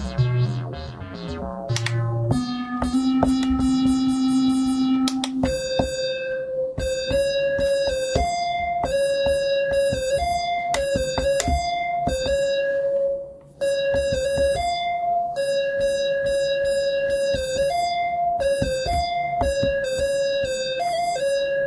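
Synthesizer tones being played back: a quick run of falling notes, a single held note, then a short phrase hopping between two pitches that repeats over and over, stopping briefly once partway through.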